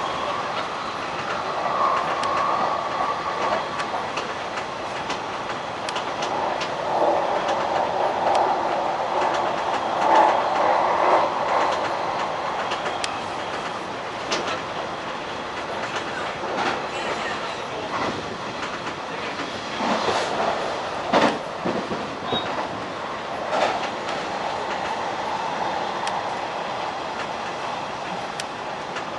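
Hanshin 1000 series electric train running at speed: a steady rumble of wheels on rail with irregular clacks from rail joints and points, several of them close together about two-thirds of the way through.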